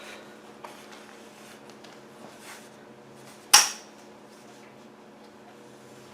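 A sharp click about three and a half seconds in, with a fainter click near the start, from handling the rear leg and foot of a folding two-wheel walker as the foot is worked off. A faint steady hum runs underneath.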